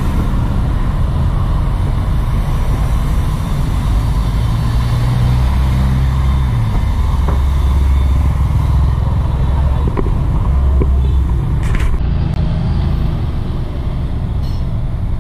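Low, steady rumble of a motor vehicle under way. Its engine tone shifts up and down in steps a few times.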